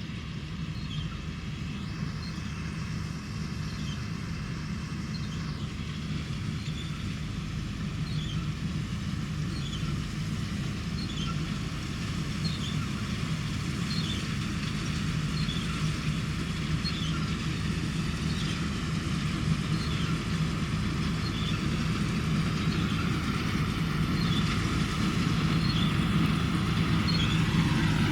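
New Holland CR960 combine harvester running steadily while harvesting cereal, its engine drone growing gradually louder as it comes nearer. Faint short high chirps recur over the drone.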